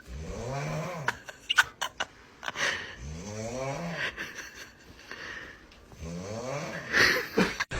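Loud snoring: three long snores about three seconds apart, each a droning breath whose pitch rises and then falls, with a few sharp clicks between them.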